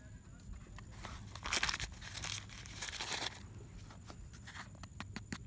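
Rustling and crinkling handling noise in two spells of a second or so, followed by a few sharp clicks near the end.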